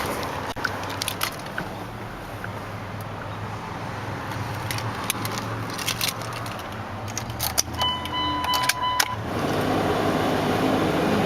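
A 1998 Dodge Ram 2500's 5.9-litre Cummins inline-six turbo diesel idling steadily, with scattered sharp clicks and jangles over it. A short steady electronic chime sounds about eight seconds in. A louder steady rush comes in near the end.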